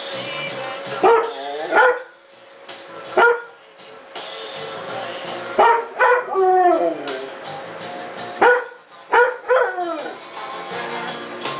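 Mixed-breed dog howling along to music from a loudspeaker: a series of short pitched howls and yips over the song, with a longer howl about six seconds in that slides down in pitch.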